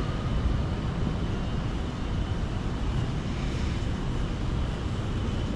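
Steady low rumble of city street noise, with no distinct events.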